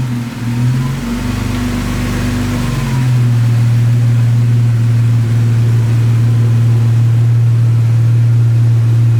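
A vehicle engine running: uneven, with a faint rising-and-falling whine, for about the first three seconds, then settling into a steady low drone.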